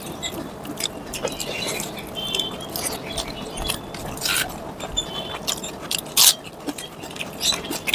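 Close-up eating sounds: fingers mixing and squishing rice with chicken curry on a plate, with wet chewing and scattered mouth clicks, one louder click a little after six seconds.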